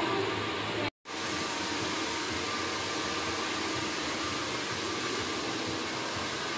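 Steady hiss and whir of a hair dryer running, with a brief break about a second in.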